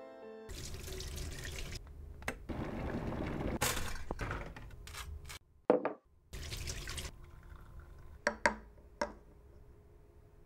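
Kitchen sounds: water running for several seconds, a sharp knock, a short rush of noise, then three clinks of a china cup on its saucer.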